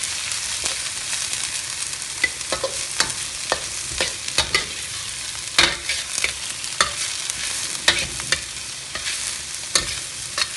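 Bamboo shoots and chives stir-frying in lard in a wok: a steady sizzle, with the metal spatula scraping and clanking against the pan at irregular moments.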